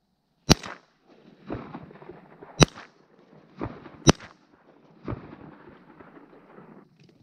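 Three 20-gauge shotgun shots, about one and a half to two seconds apart, fired at decoying ducks. About a second after each shot comes a softer, duller boom, the echo rolling back across the open water.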